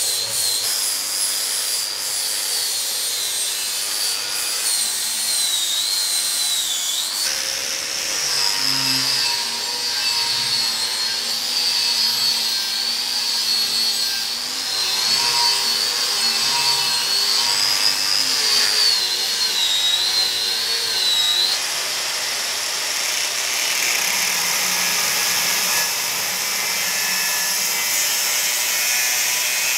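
Angle grinder working steel pipe in three passes: a flap disc grinding down a weld, then a strip disc stripping rust from the pipe, then a thin cutting disc slicing through it. The motor's high whine wavers as the disc is loaded, and the sound changes abruptly about seven seconds in and again about twenty-one seconds in as one pass gives way to the next.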